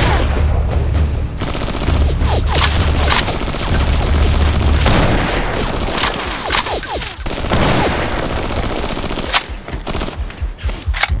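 Repeated volleys of gunfire sound effects laid over foam-dart blaster fire, with background music with a heavy bass beat underneath.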